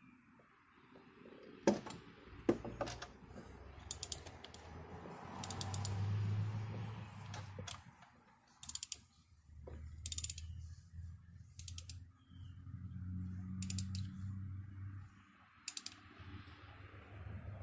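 Hand socket ratchet clicking in several short runs while spark plugs are tightened, with low handling noise between the runs.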